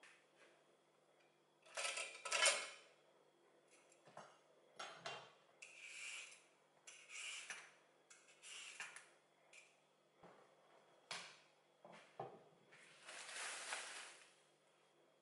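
Vegetable peeler scraping down a raw carrot in a series of short strokes over a wooden chopping board, the loudest about two seconds in, with now and then a clink of the peeler and knife against the board.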